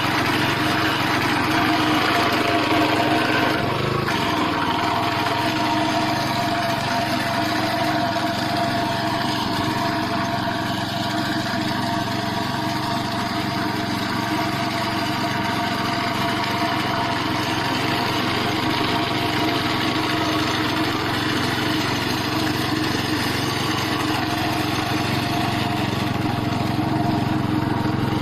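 Small engine of a compact self-propelled handheld grass and herb cutter running steadily; its pitch dips briefly about four seconds in, then holds steady.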